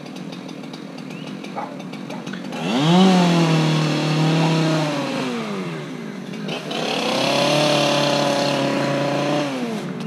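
Two-stroke chainsaw idling, then revved up to full speed about three seconds in and held, easing back near the middle, then revved and held again until it drops off near the end.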